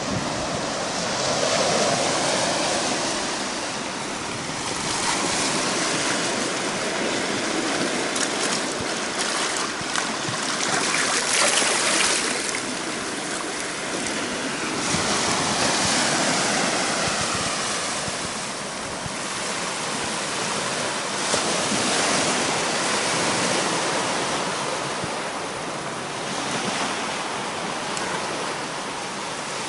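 Small ocean waves washing over a rocky shore, with seawater rushing and foaming through a channel between the rocks. The rush swells and eases every few seconds.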